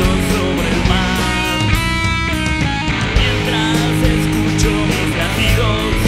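Instrumental rock music led by electric guitar, with sustained and bending guitar notes over a steady drum beat.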